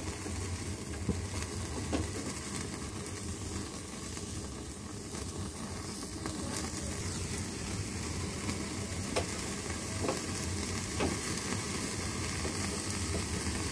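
Chicken tikka on wooden skewers sizzling over an open gas burner flame: a steady hiss with a few faint crackles.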